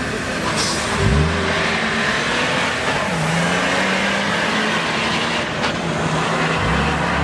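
Two cars launching hard off a drag-strip start line, a BMW 3 Series saloon and a VW Tiguan SUV. Engine pitch climbs sharply about a second in, then drops and climbs again twice as they shift up through the gears while accelerating away.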